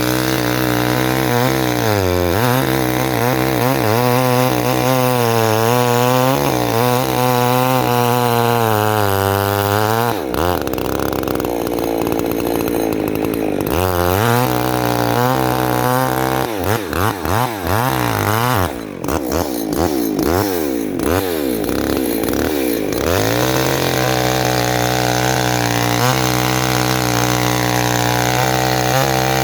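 Chainsaw running hard, its engine pitch wavering under load as it cuts wood. Between about two-thirds and three-quarters of the way through, the revs swing rapidly up and down for several seconds before settling back to a steady high pitch.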